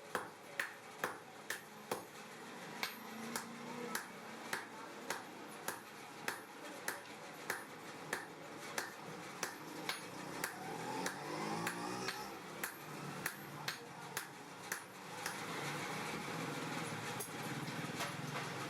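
Hammer blows on hot steel over an anvil, in an even rhythm of about two to three strikes a second, forging tongs. The blows thin out after about fifteen seconds as a steady rushing noise comes up.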